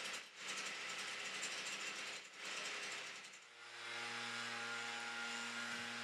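Steady rush of falling water from Nachi Falls, a tall waterfall heard from its viewing area. About three and a half seconds in, a steady low hum joins it.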